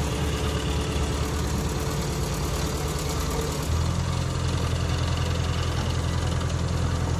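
Diesel engine of a Hydra mobile crane running steadily while its boom is worked. It grows louder and fuller a little under four seconds in, as the engine picks up.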